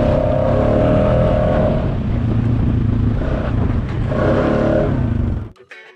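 Honda Foreman ATV's single-cylinder engine running steadily under way on the trail. It cuts off suddenly about five and a half seconds in.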